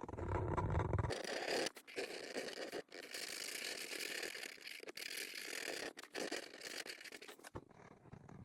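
Colouring strokes scratching on paper: a scratchy hiss with short breaks between strokes, starting about a second in after a low rumble and fading near the end.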